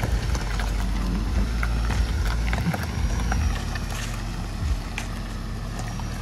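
Ford F-150 pickup truck driving slowly at a crawl, its engine a steady low rumble, with scattered light clicks over it.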